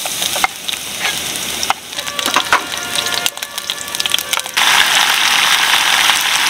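Chopped garlic sizzling and crackling in hot oil in a small pot on a portable gas stove, with the scrape of a wooden spatula stirring it. About four and a half seconds in, a louder, denser sizzle takes over.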